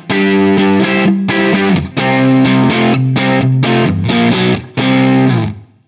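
Distorted electric guitar playing a riff of held chords with short stops between them, through a Laney LA30BL 30-watt tube amp and a 2x12 cabinet with Celestion Greenback speakers. The last chord fades out near the end.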